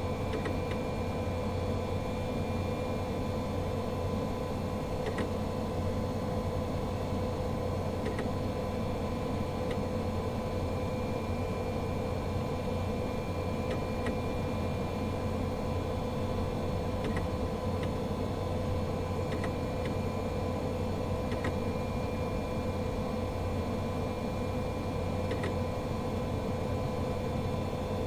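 Apple Macintosh G3 computer running: a steady hum with a constant whining tone, and occasional faint ticks a few seconds apart.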